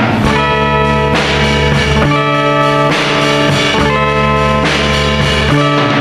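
Instrumental rock home recording made on a four-track tape recorder: guitars play held chords over a bass guitar line, changing chord about once a second.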